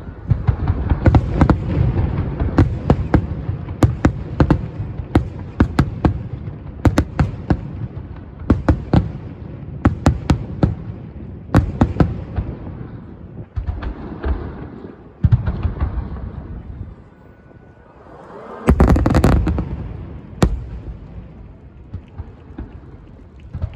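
Fireworks finale: a dense, rapid barrage of shell bursts, sharp cracks over deep rumbling booms, thinning out about halfway through, with one more loud, longer burst about three quarters of the way in.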